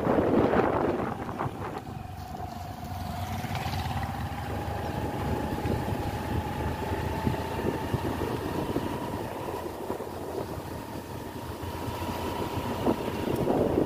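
Motorcycle riding along, its engine giving a steady whine that rises slowly in pitch, over the rushing noise of the ride.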